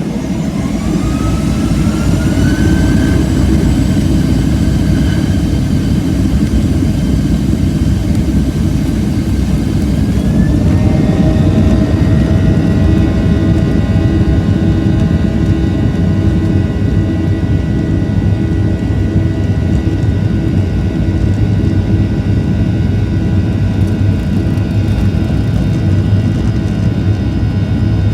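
Boeing 737-700's CFM56-7B turbofan engines spooling up for takeoff: a whine rises over a heavy rumble, climbs again about ten seconds in, then holds steady at takeoff thrust.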